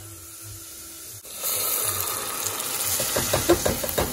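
Canned peas and their liquid poured from the can into a hot pot of sautéed potato and onion. About a second and a half in, a hissing sizzle starts as the liquid hits the pan, and a run of plops and splashes follows near the end as the peas tumble in.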